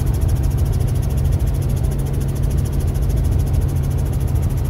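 Helicopter engine and rotor heard from inside the cabin in flight: a loud, steady low drone with a fast, even flutter.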